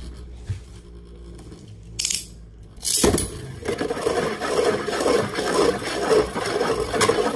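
Beyblade Burst spinning tops in a clear plastic stadium. At first a single top whirs steadily on the stadium floor. About three seconds in, a short hiss and a sharp click are heard as a second top is launched, and then the two spin with a loud, continuous rattling and scraping against each other and the floor.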